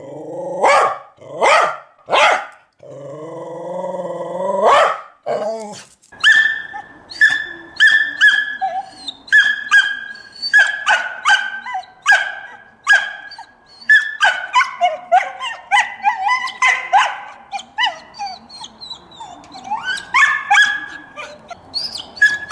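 A dog barking. A few full barks come first, then one longer drawn-out bark, then from about a quarter of the way in a fast run of short, high-pitched yapping barks, several a second.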